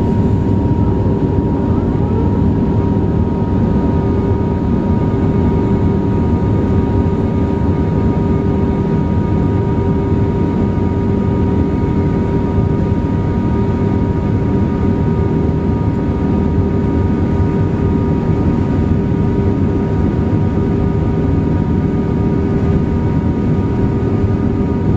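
Airbus A380's four turbofan engines running steadily: a loud, even jet drone with a few steady tones.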